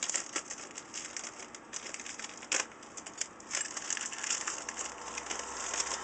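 Clear plastic bag crinkling and crackling as it is handled and opened, with one sharper crackle about two and a half seconds in.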